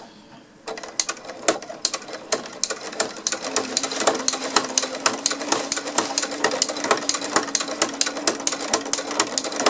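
Brother electric sewing machine with a ruffler foot starting up just under a second in and stitching steadily: a fast, even run of clicks from the needle and ruffler strokes, with a steady motor hum underneath.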